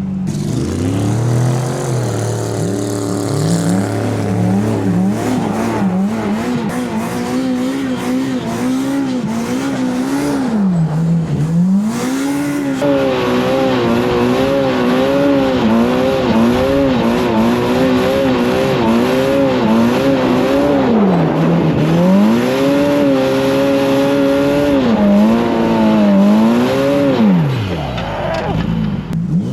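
Side-by-side UTV engine revving up and down again and again under load, with wheelspin, as it churns through deep snow.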